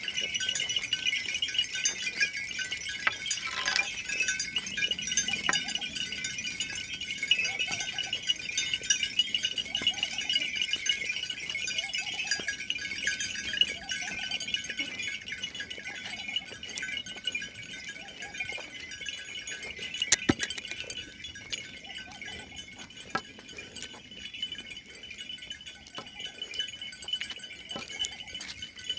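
Goats bleating faintly now and then over a steady, high, fluttering jingle and clink.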